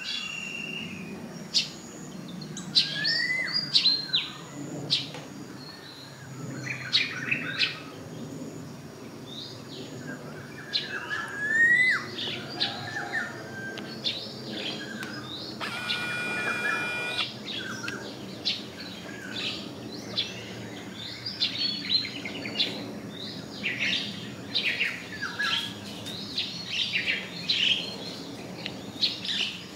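Several wild birds chirping and calling, short notes and quick whistled glides, over a steady low background hum. About halfway through, a held sound with several tones lasts about a second and a half.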